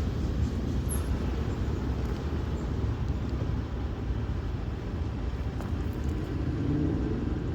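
Ballast train rolling past at trackside, a steady low rumble.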